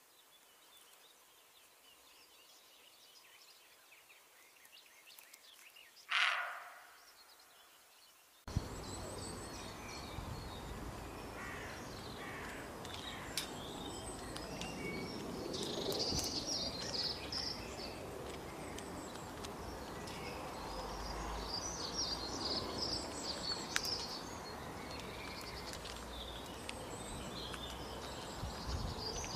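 A single short deer bark after a few seconds of near silence. From about eight seconds in, a steady outdoor background with small birds chirping faintly.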